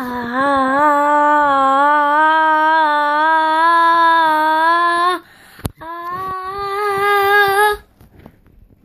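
A young girl singing long held notes on an open vowel without words: a first note of about five seconds that wavers slightly and slowly rises in pitch, a brief click, then a second, higher note of about two seconds.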